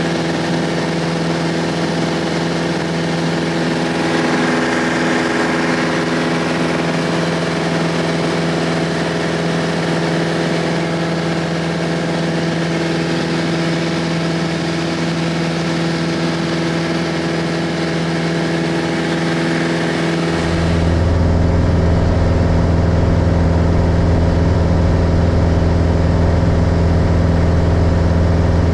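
Single-engine light airplane's piston engine and propeller running steadily at high power as the plane takes off and climbs, heard from inside the cabin. About 20 seconds in the sound turns deeper and duller, with a stronger low drone and less hiss.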